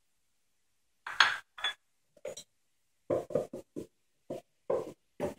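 Short knocks and clinks of kitchen utensils and dishes being handled, about ten separate strikes starting about a second in, some in quick pairs.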